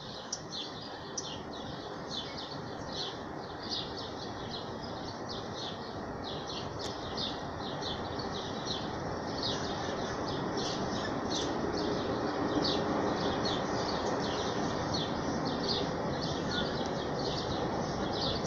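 A bird chirping: short high-pitched chirps repeated about two or three times a second, over a steady rushing background that grows louder about halfway through.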